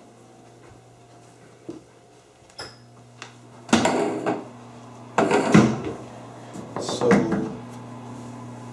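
Indoor movement noises over a steady low hum: a few light clicks, then three loud rustling, knocking bursts about a second and a half apart.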